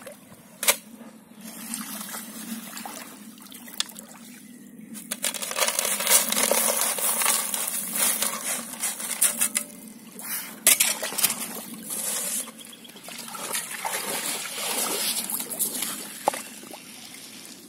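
A shovel digging into wet river gravel and tipping it onto a plastic tray: long stretches of gravel scraping and sliding, with a few sharp clinks of metal on stones. Water sloshes at the river's edge.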